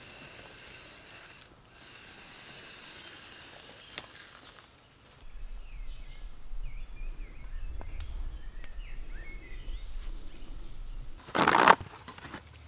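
Small birds chirping in a forest, over a low rumble that starts a few seconds in, with one short loud burst of noise near the end.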